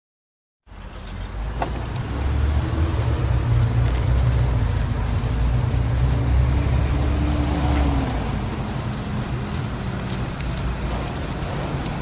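Steady low rumble of road traffic and engines, starting abruptly under a second in.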